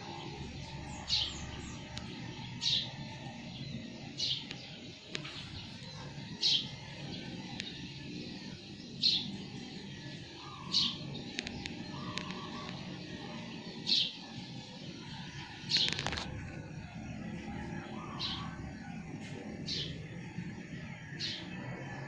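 A bird repeating a short, high, falling chirp every one to three seconds over a steady background hiss, with one sharp click about two-thirds of the way through.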